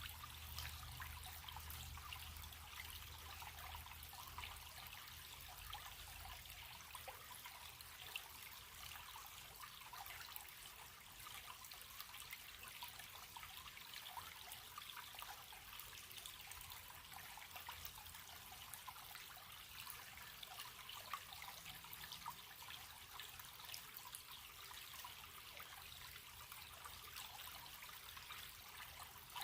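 A running stream trickling and splashing steadily, with a faint low rumble that fades out in the first few seconds.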